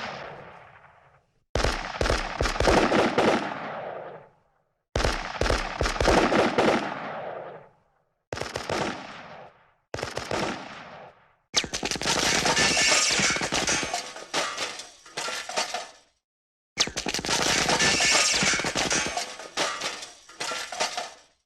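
Machine-gun fire sound effects: about six separate bursts of rapid automatic fire with short silences between them, each dying away in a reverberant tail. The bursts from about halfway on are longer and sharper.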